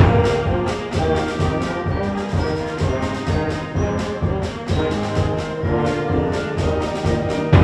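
High school band playing, with brass carrying the music over a steady beat of sharp strikes. The section ends with one loud accented hit, after which the band drops to softer held notes.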